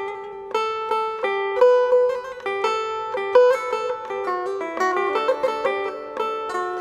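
Background music: a plucked-string melody of quick, sharply struck notes, like a mandolin or banjo.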